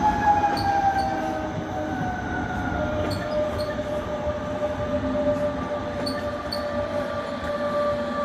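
Regional train wheels squealing: several high, steady tones that slowly fall in pitch as the train slows for its stop, over the rumble of the train.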